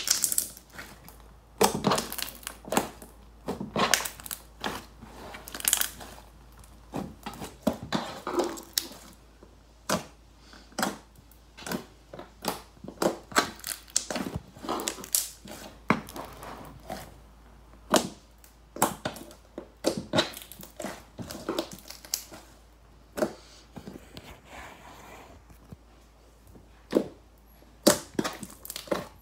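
Hands squeezing, pressing and poking thick green slime, making an irregular run of short, sharp sticky pops and crackles, several a second.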